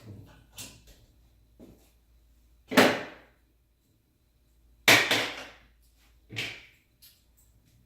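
Three sharp knocks, each ringing briefly and fading: one about three seconds in, the loudest near five seconds, and a softer one a second and a half later.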